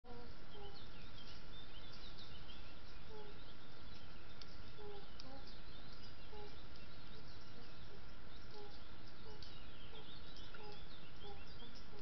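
Steady rushing background noise with small birds chirping and short, repeated low notes of unknown origin: the mysterious sounds heard in the bearded vulture release niche.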